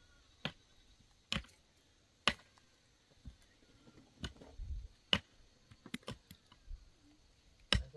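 Pickaxe striking hard, stony soil while digging a foundation trench: about eight sharp strikes at uneven intervals.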